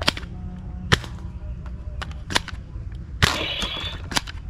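Toy gun firing five sharp cracks at uneven spacing; the fourth, about three quarters through, trails off into a short hiss.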